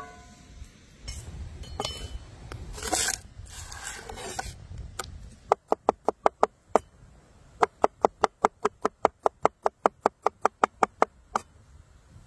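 Cleaver chopping garlic on a wooden cutting board: fast, even knocks of the blade on the wood, about six a second, with a short pause after the first few. Some scraping and rubbing comes before the chopping.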